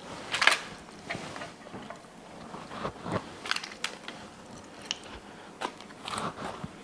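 Aluminium foil crinkling and rustling in scattered short crackles as it is folded back from a rack of smoked ribs.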